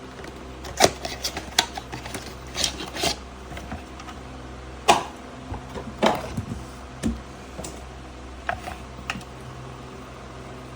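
Irregular clicks and taps of wires, connectors and plastic parts being handled during electrical wiring, over a steady low hum.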